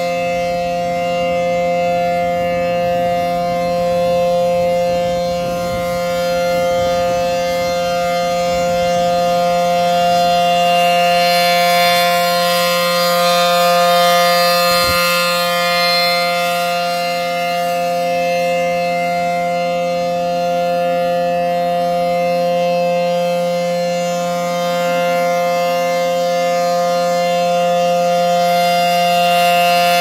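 American Signal P-10 outdoor warning siren sounding its one-minute alert, a loud steady tone held at constant pitch. Its single horn rotates, so the sound swells and fades gently every few seconds.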